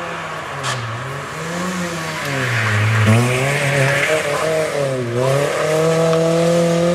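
A rally car's engine revving hard through a hairpin. The engine pitch drops and rises several times, then climbs steadily over the last two seconds as it accelerates away.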